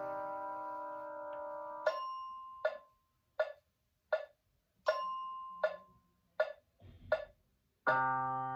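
Piano played in C minor: held notes die away, then about eight short, detached notes follow at an even pulse of roughly one every three-quarters of a second, and a new set of held notes sounds near the end.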